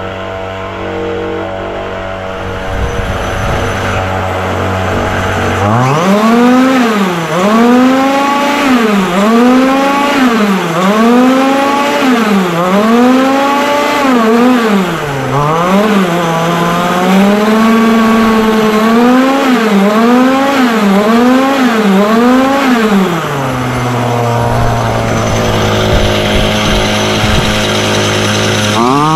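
Chung Yang 26cc two-stroke gas engine of a 1/5-scale RC car idling steadily, then revved in a string of quick blips about once a second, each rising and falling in pitch, for some seventeen seconds. It settles back to a steady idle, and begins to rise again right at the end.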